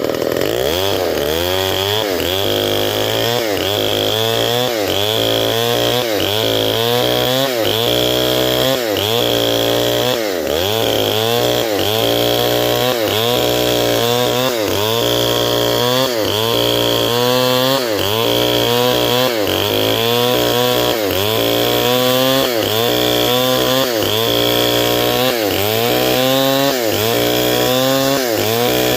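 Stihl 070 two-stroke chainsaw cutting a durian log lengthways, its engine pitch dipping under load and climbing back about once a second in an even rhythm.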